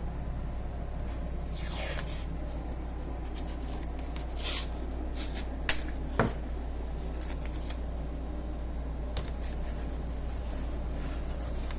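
Handling noises from assembling a taped box: a few brushing, rasping strokes and two sharp clicks about six seconds in, over a steady low hum.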